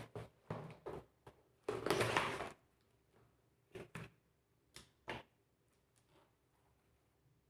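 Handling noises from laptop-repair work: a quick run of light clicks and knocks, a short rustling scrape about two seconds in, and a few more clicks before it goes quiet.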